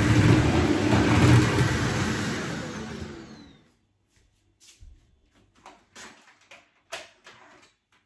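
Upright bagless vacuum cleaner running, then switched off about three seconds in, its motor whine falling away as it winds down. A few short plastic clicks and knocks follow as the dust canister is handled and unclipped.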